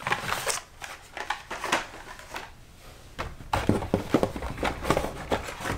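Handling of blister-packed Hot Wheels cars on cardboard cards: irregular clicks, taps and light rustles of plastic blisters and card, with a few heavier knocks in the second half as packages are picked up and set down.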